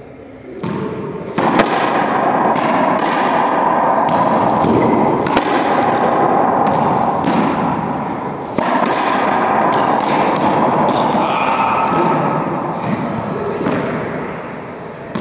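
Racquetball rally in an enclosed court: a rapid run of sharp whacks as the rubber ball is struck by racquets and rebounds off the walls and floor, each hit echoing. The hits begin about a second in and continue with a short lull past the middle.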